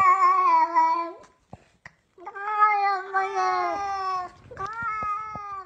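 A domestic cat at a window giving three long, drawn-out meows at a steady, slightly falling pitch. The first ends about a second in, the second lasts about two seconds, and the third comes near the end. The meows come across as the words 'rápido' and 'abre' (open).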